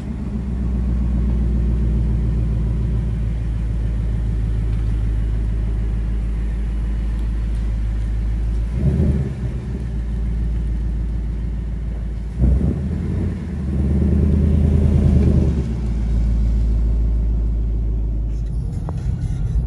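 Car engine and road noise while driving, a steady low drone. The engine note breaks and changes twice, about nine seconds in and again about twelve and a half seconds in, and runs louder for a couple of seconds after the second change.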